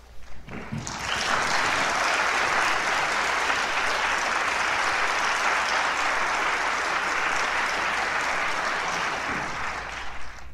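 Concert audience applauding: a few scattered claps, then steady full applause from about a second in, thinning near the end.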